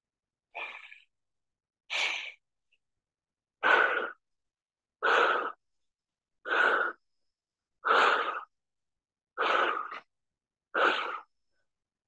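A man breathing hard under exertion during dumbbell overhead squats: eight sharp, forceful breaths about every second and a half, louder after the first two.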